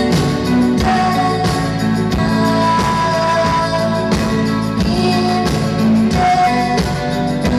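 Live dream-pop band playing loud through a PA: sustained keyboard chords and guitar over a steady drum beat.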